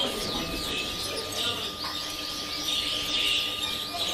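Many caged finches chirping and twittering together, a dense overlapping chorus of high, quick calls.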